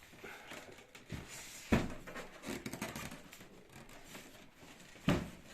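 Rustling and handling noises from parts of a foam incubator being fitted together, with two sharp knocks, one about two seconds in and another near the end.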